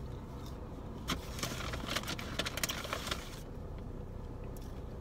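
Paper fast-food bag rustling and fries being handled and eaten, in a crackly stretch from about a second in to past the middle, over the steady low hum of a car idling.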